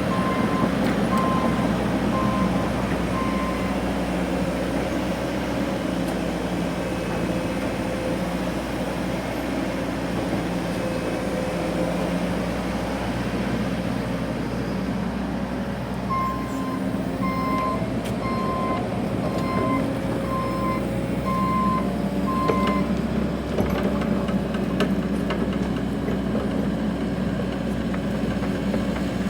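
Excavator engine running steadily under load, with its backup alarm beeping at an even pace a little faster than once a second, briefly at the start and again for about six seconds past the middle.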